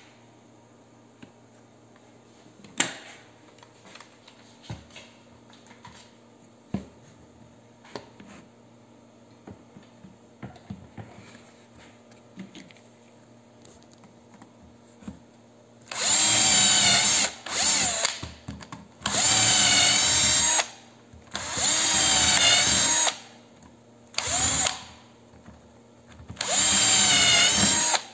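Bosch cordless drill boring shelf-pin holes through a drilling template's metal guide bushings into a chipboard panel: six short bursts of motor whine in the last third, the pitch wavering as the bit loads. Before the drilling, a few light clicks and taps.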